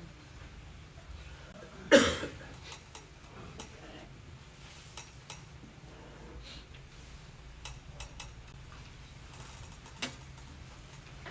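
Quiet room with a steady low hum and scattered small clicks and knocks. One louder thump comes about two seconds in, and a sharp click near the end.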